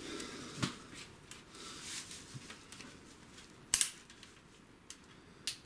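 Scuffing and a few sharp clicks and knocks of someone clambering over cave rock, the loudest knock about four seconds in.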